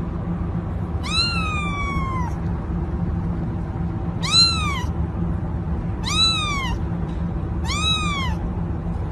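Young kitten meowing four times, high-pitched calls that rise and then fall; the first is the longest, the other three are short. A steady low hum runs underneath.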